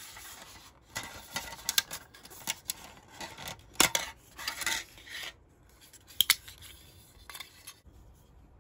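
Thin plastic mixing tray and small plastic spoon of a Nerunerunerune candy kit being handled: rubbing and scraping with a series of sharp plastic clicks, the loudest nearly four seconds in and again past six seconds.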